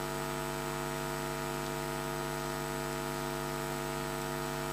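Steady electrical mains hum: a constant buzz of many even, unchanging tones over faint hiss.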